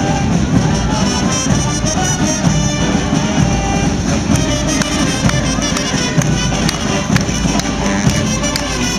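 Brass band music with horns carrying held notes, joined by sharp percussion hits from about four seconds in.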